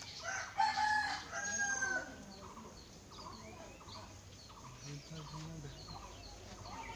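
A rooster crows once, starting about half a second in and lasting about a second and a half. Small birds chirp repeatedly and faintly afterward.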